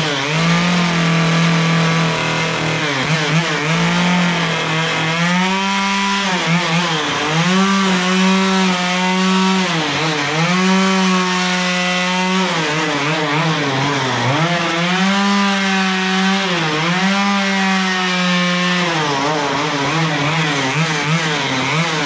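Stihl two-stroke chainsaw with a carving bar running at high revs while cutting shallow angled grooves into a wooden tiki. Its engine note dips and climbs back several times as it cuts.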